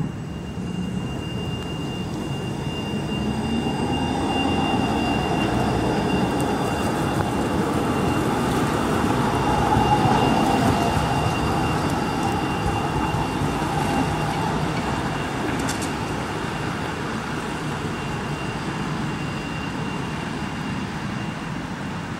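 Leipzig city tram rolling slowly past on the turning loop, growing louder to about ten seconds in and then fading as it moves away. A thin steady high whine runs along with the rolling noise.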